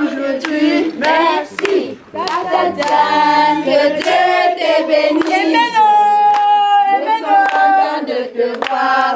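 A group singing a welcome song unaccompanied, with hand clapping on the beat. About six seconds in, one voice holds a long note.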